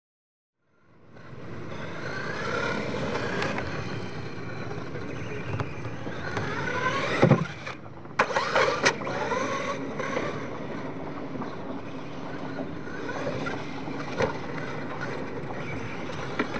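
Radio-controlled monster truck driving on a dirt course, its motor whining up and down in pitch with the throttle over the noise of tyres churning dirt. About seven seconds in there is a loud thud, followed by a few sharp knocks as the truck tumbles and lands. The first second is silent, then the sound fades in.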